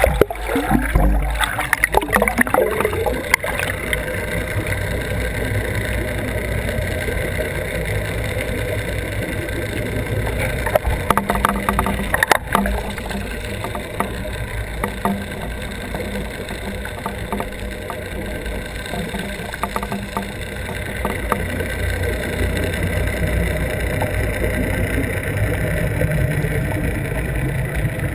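A boat's motor running steadily with rushing water, heard muffled through a homemade camera housing towed underwater behind a downrigger weight. A few knocks and rattles come in the first few seconds and again near the middle.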